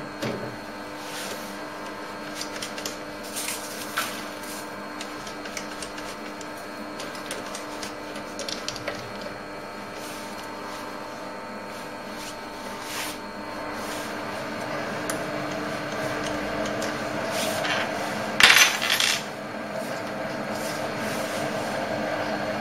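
Optimum TU2004V mini lathe running steadily, with sharp metal clinks in the first seconds as the steel toolpost is handled. From about 14 seconds in a cutting noise builds as the tool meets the metal workpiece, with a loud harsh burst about 18 seconds in.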